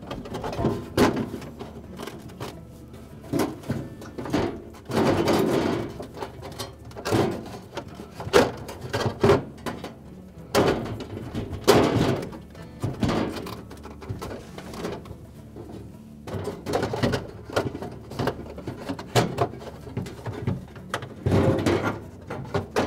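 Irregular knocks, clatters and scrapes of a refrigerator's evaporator cover and cardboard back panel being handled and worked into place inside the freezer compartment.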